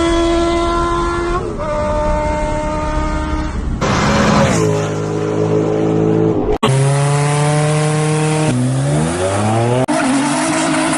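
Car engines running at high revs, heard as several short clips cut together. The engine note drops about four and a half seconds in and climbs again as the engine revs up near the end.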